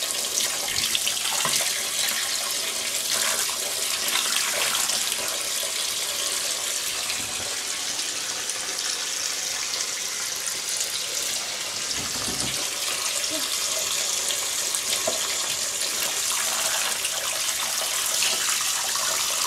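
A bathroom sink tap running steadily, its stream splashing over a small toy car held under it. There is a brief low thump about twelve seconds in.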